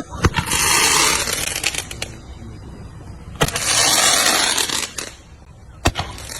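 Roman candle firing: three sharp pops roughly every three seconds, the first two each followed by about a second and a half of hissing.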